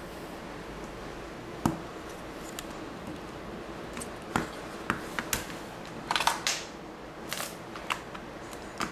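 Plastic casing of a DJI Phantom 4 flight battery being handled: scattered clicks, taps and light knocks as it is turned over in the hands and set down on a table, most of them in the second half.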